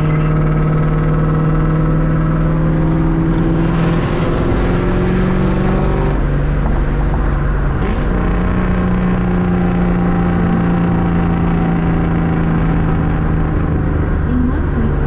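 Straight-piped Ford Mustang GT's 4.6-litre V8 running loud and steady at highway speed, heard from inside the car. Its note steps up and down a few times with changes in throttle, then eases lower toward the end.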